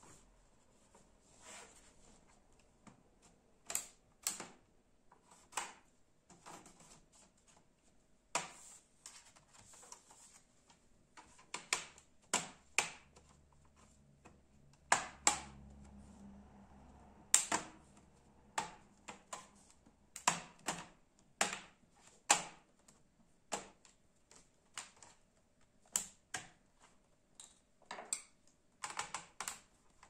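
Irregular sharp plastic clicks and snaps as the plastic case of a Dell Inspiron 15 laptop is pried apart, its clips releasing one after another, with a brief low rumble of handling about halfway through.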